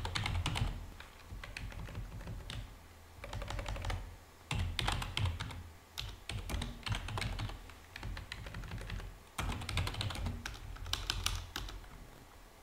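Typing on a computer keyboard: several bursts of rapid keystrokes with short pauses between them.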